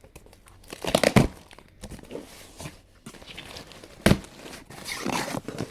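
Plastic packaging crinkling and rustling as it is unwrapped by hand, in a few bursts, with one sharp click about four seconds in.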